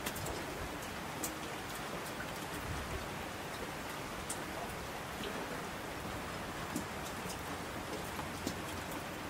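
Steady rain falling, with scattered sharp taps of individual drops.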